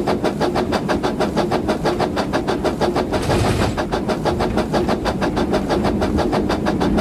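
A small motor-driven machine running steadily with a fast, even pulsing of about six or seven beats a second. A brief hiss rises over it about three seconds in.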